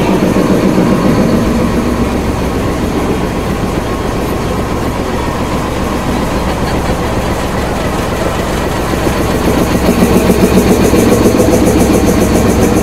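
KTM Class 26 diesel-electric locomotive running as it pulls slowly past, a loud steady engine rumble. Near the end it grows louder and throbs in an even rhythm as the engine compartment comes alongside.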